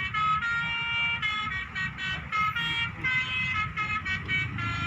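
Basuri telolet horn playing a quick tune of short, stepped multi-tone notes, over a low rumble.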